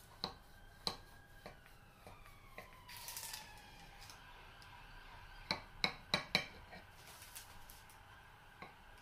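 A knife cutting an apple cake in a glass baking dish, its blade clicking and tapping against the glass: a few light taps, then four sharper clicks in quick succession a little past the middle.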